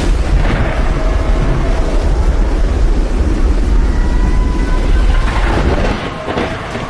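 Hurricane storm noise: a loud, heavy low rumble under a hiss of wind and rain, easing about six seconds in.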